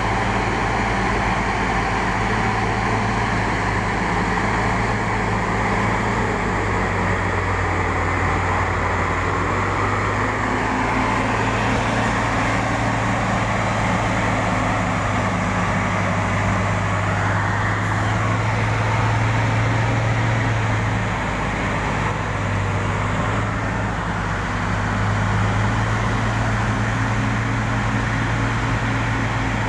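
Excavator diesel engine running steadily as the machine works, a constant deep drone whose pitch shifts slightly a few times.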